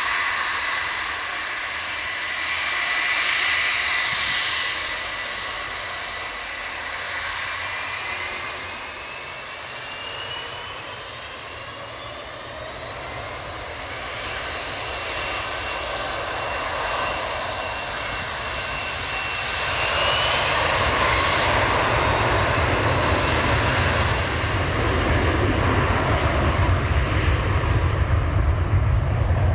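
Boeing 757-200's twin Rolls-Royce RB211 turbofans whining at low power, with a tone that rises in pitch. About two-thirds of the way through they spool up to takeoff thrust, growing louder with a deep rumble as the takeoff roll begins.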